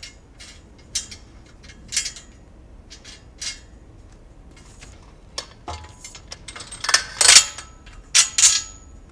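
Small metal clicks and clinks as a wing nut is turned off a bolt and the back-support tube is worked loose from a steel bracket on a pipe-and-drape base: a few separate sharp clicks at first, then a busier run of louder clanks, some briefly ringing, near the end.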